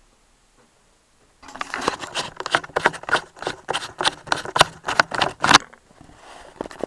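Handling noise from a camera being picked up and moved: a quick, dense run of knocks and rubs on the microphone. It starts about a second and a half in and stops about a second before the end.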